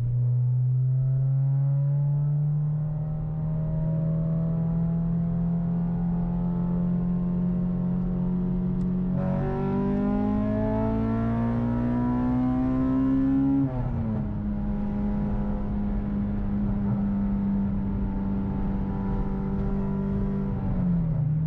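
Acura RSX Type S's K20 inline-four running through a very loud aftermarket exhaust while cruising. The engine note climbs slowly, the revs jump up at a gear change about nine seconds in and climb again, then fall at a shift about halfway through and hold steady, dropping once more near the end.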